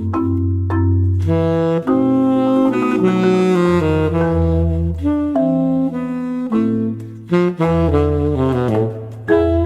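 Jazz music: a saxophone plays a sustained melody over a walking bass line.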